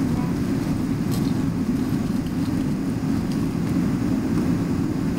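Steady low cabin rumble of a Boeing 777-300ER taxiing, its GE90-115B engines at low taxi thrust and the airframe rolling along the taxiway.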